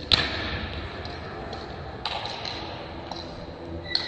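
Table tennis rally: the celluloid ball clicking off rackets and the table, with one sharp hit right at the start and several lighter ticks spaced roughly half a second to a second apart, over the steady background hum of a large hall.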